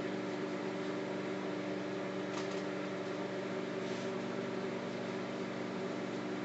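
Microwave oven running with a steady hum and fan noise while it heats marshmallows, with a couple of faint clicks about two and a half and four seconds in.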